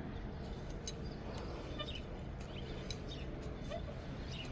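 Outdoor background noise with a steady low rumble and scattered short bird chirps.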